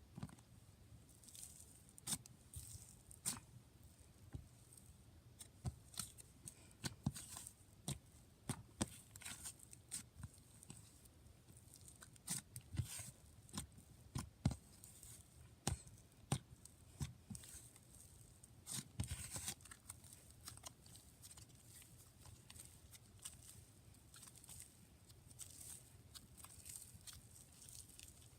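Hands stretching, pressing and squishing soft butter slime, giving quiet, irregular sticky clicks and small crackling pops.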